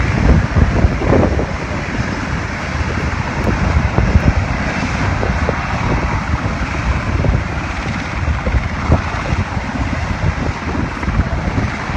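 Military helicopter running: a loud, steady rush of turbine and rotor noise with an uneven low rumble.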